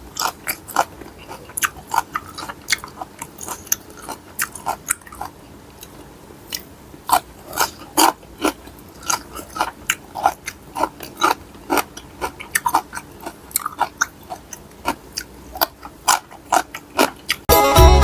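Close-up eating sounds of someone chewing and biting into mixed-seafood papaya salad: many short, crisp crunches and mouth clicks at an irregular pace. Music starts just before the end.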